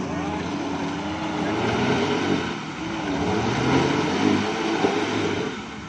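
Suzuki Jimny's engine revving under load as the 4x4 crawls up rocks, its pitch rising and falling with the throttle over a broad hiss. One short knock about five seconds in.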